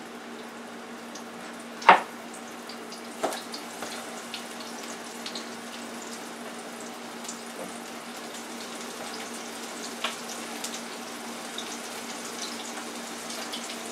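Battered onion rings frying in the hot oil of a small electric deep fryer: a steady crackling sizzle with small pops. A sharp click comes about two seconds in, and a softer one a second or so later.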